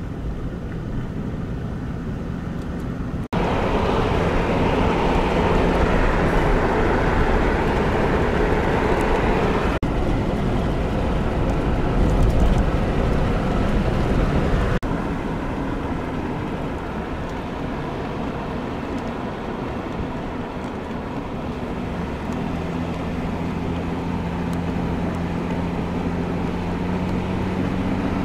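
A car being driven, heard from inside: steady road and engine noise. It gets abruptly louder and rougher about three seconds in. Near the middle it drops back to a steadier running sound with a low engine hum.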